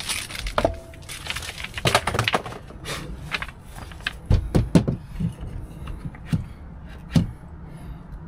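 Irregular clicks and knocks as an Aquor hot-and-cold hydrant is handled and pushed into its wall inlet, its plastic and metal parts bumping and seating, with the loudest knocks about halfway through.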